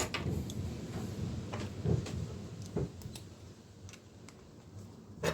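Hand tools handled on a bicycle pedal axle: scattered light metal clicks and knocks as a spanner is set on the pedal's 10 mm axle nut to nip it up.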